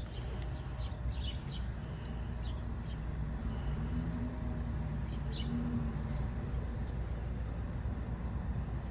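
Steady low rumble of a motor vehicle running nearby, with birds chirping and a few faint clicks.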